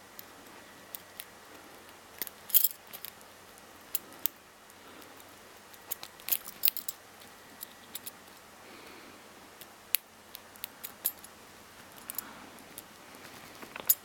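Homemade hacksaw-blade lock pick and tension wrench working inside a cheap padlock: irregular small metallic clicks and scrapes, in short clusters and single ticks, as the pick rakes and lifts the pin tumblers.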